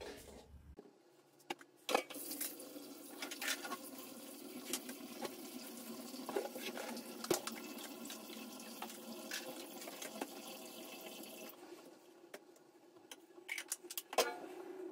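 Water running from a tap for about nine seconds, with scattered clicks and knocks, then shutting off; a few more knocks near the end.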